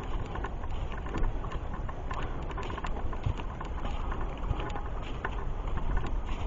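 Footsteps on a dirt forest trail, a steady run of small crunching and crackling clicks, over a low rumble of wind and handling on the microphone.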